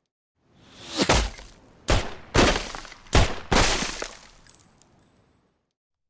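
A handgun firing five shots into a wooden target, each a sharp crack with a short ring-out. The shots come in an uneven run over about two and a half seconds, the first two spaced wider than the rest.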